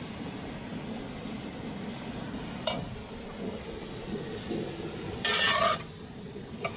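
Beef cubes sizzling as they brown in a cast-iron camp oven on a gas stove. A metal spatula stirs them, with a sharp click a little under three seconds in and a brief, louder scrape against the pot about five seconds in.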